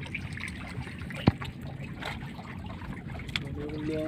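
Wet gillnet being hauled in over the side of a fishing boat, water trickling and dripping off the mesh, over a steady low hum. A single sharp knock comes about a second in.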